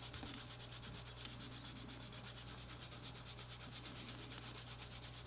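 Edge of a 6 oz bridle leather strap being burnished with a canvas cloth: rapid, even back-and-forth rubbing strokes, faint, over a steady low hum.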